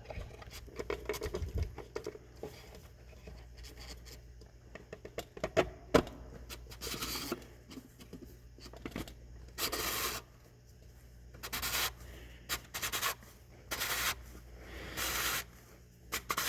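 2006 Volkswagen Passat's plastic oil filter housing being positioned and threaded back in by hand: short scraping and rubbing sounds of plastic on plastic, with scattered clicks and knocks.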